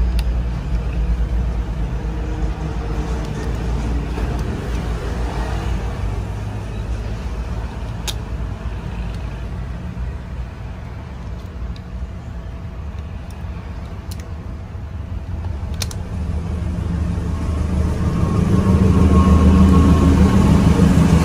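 A vehicle engine runs nearby with a steady low hum, growing louder near the end. A few light clicks sound over it.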